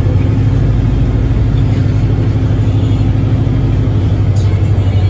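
Airport apron shuttle bus on the move, its engine making a steady low drone heard from inside the passenger cabin.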